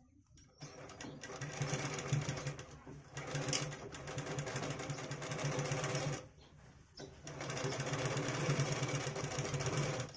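Bharat sewing machine running as it stitches cloth, in two runs: it starts about half a second in, stops for about a second around six seconds in, then runs again until just before the end.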